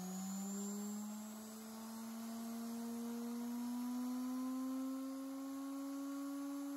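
Washing-machine universal motor speeding up as a variac raises its supply voltage: a whine with several overtones that climbs steadily in pitch and levels off near the end.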